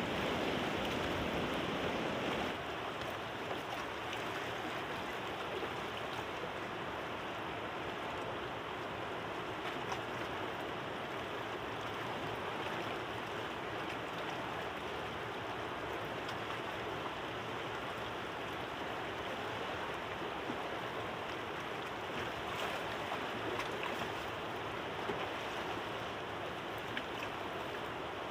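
Steady rushing of a wide, fast-flowing river running over stones, slightly louder for the first couple of seconds, with a few faint knocks here and there.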